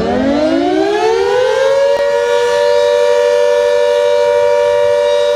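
Civil-defence air-raid siren winding up: several tones rise together in pitch over about two seconds, then hold as a steady, loud wail. It sounds as the air-raid warning of a fictional emergency alert.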